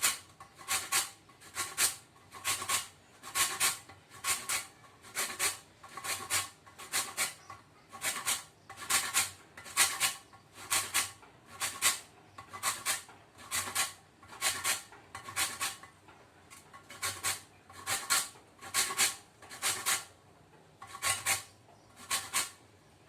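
Lemon rind being zested on a fine hand grater: quick, even scraping strokes, a few a second, with a brief pause near the end. Only the outer peel is being grated off.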